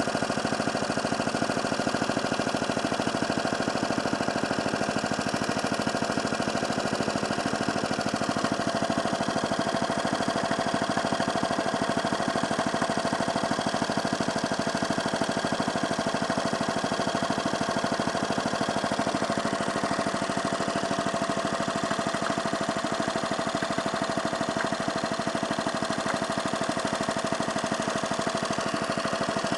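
Hayterette rough-cut rotary mower's small petrol engine running steadily at constant speed, with a fast, even firing beat and no change in revs.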